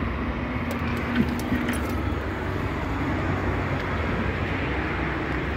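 Steady low rumble of road traffic, with a couple of faint clicks between one and two seconds in.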